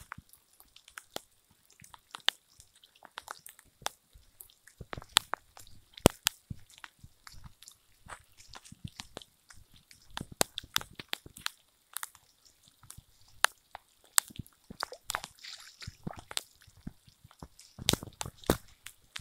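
Rain falling, with drops tapping sharply and irregularly close to the microphone, and barefoot steps squishing through wet grass and mud.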